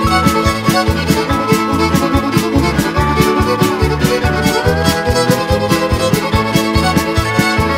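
Upbeat country music with no vocals: a steady drum beat under a lead melody that slides between notes.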